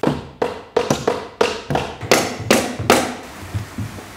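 A hammer knocking CNC-cut plywood box parts together: about ten sharp, ringing knocks at roughly three a second, stopping about three seconds in.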